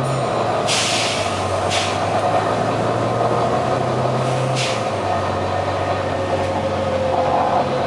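Volvo B9TL double-decker bus engine running steadily, with short bursts of hissing: a longer one just under a second in, then brief ones near two seconds and near five seconds. The hiss comes from the engine and sounds like a dodgy turbo.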